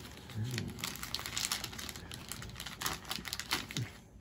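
Paper wrapping crinkling and tearing in irregular rustles as a tightly taped small present is picked open by hand.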